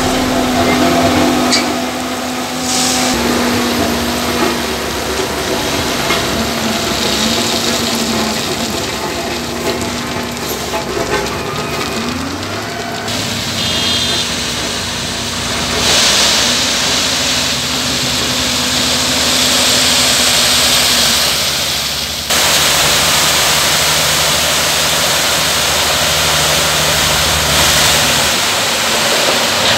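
Heavy diesel engines running at a roadworks site: first a Case single-drum road roller, then an Ashok Leyland 1618 tipper truck running as its hydraulic hoist raises the body. Loose gravel slides out of the tipping body with a steady rushing hiss.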